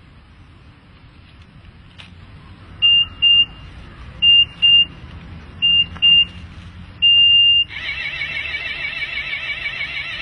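Electronic timer beeps on a coin-operated pay-to-sit bench: three pairs of short high beeps, then one longer beep, then a loud wavering warble that carries on while the seat spikes rise. The bench is signalling that the paid sitting time has run out.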